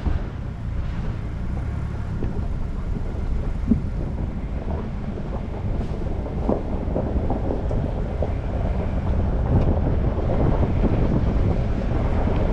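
Ford Bronco driving on a rough road: a steady low rumble of engine and tyres with wind buffeting the microphone, and scattered knocks and rattles. It grows a little louder and grittier in the second half.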